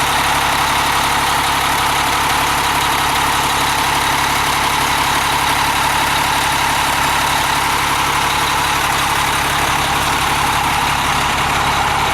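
Motorhome's Cummins diesel engine idling steadily with the engine bay open, running evenly with no change in speed.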